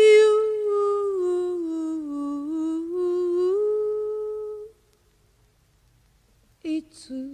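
A woman's voice humming a slow melody alone, with no instruments: one held line that sinks and climbs back again, stopping after about four and a half seconds. A short vocal sound follows near the end.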